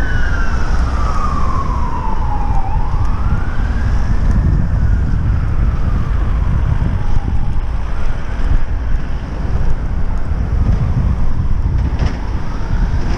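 A wailing siren rising and falling slowly, a sweep about every four seconds, growing fainter, heard over loud wind rumble on the microphone of a moving bicycle.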